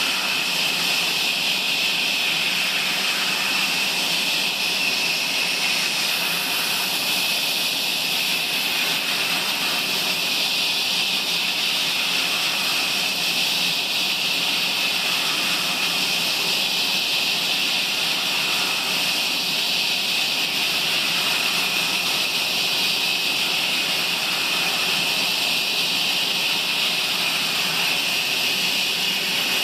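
Sawmill saw running steadily through a log, a constant high hiss with no breaks.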